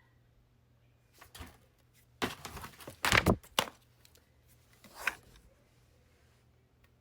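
Packaging being handled, rustling and crinkling in a few short bursts, loudest about two to four seconds in.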